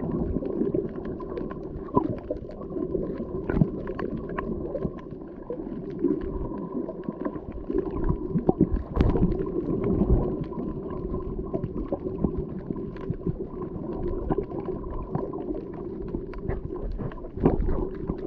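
Muffled underwater noise picked up by a camera just below the sea surface: a steady low rumble and gurgling of moving water, with many scattered short clicks and crackles.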